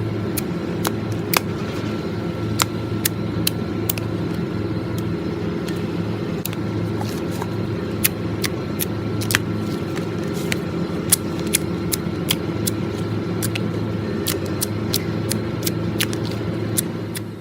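Slime clicking and popping sharply and irregularly as it is handled, over a steady low motor-like hum that drops away near the end.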